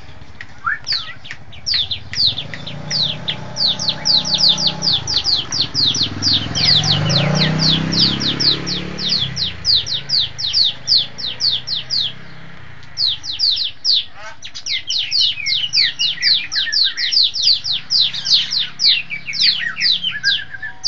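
Bar-winged prinia (ciblek) singing a fast, unbroken run of sharp downslurred notes, about five a second, with a brief break about twelve seconds in. A motor's low hum swells and fades in the background about halfway through.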